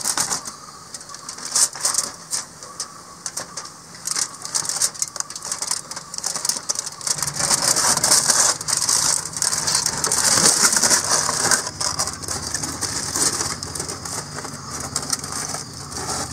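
Aluminium foil crinkling and crackling as it is pulled off a roasting tray, in many sharp irregular crackles. A low steady hum comes in about halfway through.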